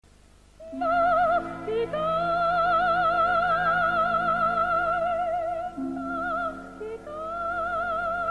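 Coloratura soprano singing long, high sustained notes with an even vibrato over a lower accompaniment. The voice comes in about a second in, holds one long note, breaks briefly, then rises into another held note near the end.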